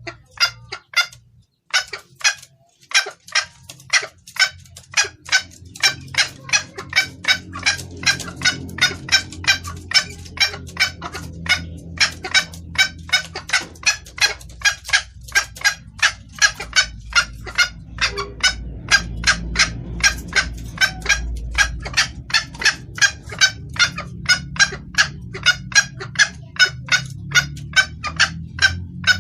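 Junglefowl hen calling without pause: short, sharp calls repeated about two to three times a second, a little sparser for the first few seconds. It is the hen's call that draws cock junglefowl, used as a lure call.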